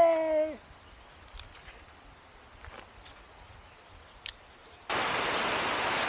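A voice holding a drawn-out "ye" that falls and stops about half a second in, then faint outdoor ambience with a steady high thin tone and a single click. About five seconds in, the sound switches suddenly to a loud, even hiss.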